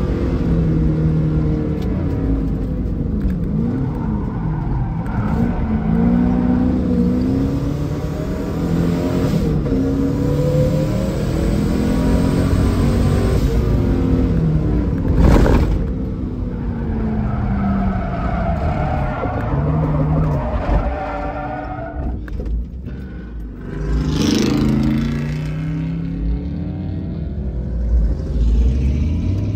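Twin-turbo LSX V8 in a Chevelle running hard on a road course. The engine pitch climbs through the gears again and again and drops away under braking, with one sharp bang about fifteen seconds in.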